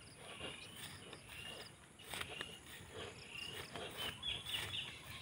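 Footsteps through grass, irregular and a little under one a second, with short high chirps of small creatures in the background.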